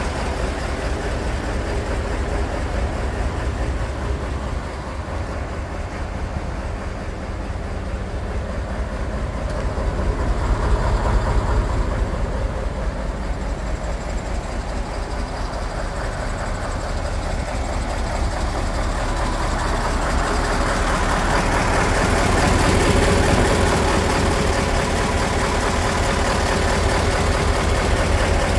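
Mercedes-Benz 3328 K tipper truck's diesel engine idling steadily with a low, even rumble, growing somewhat louder in the last third.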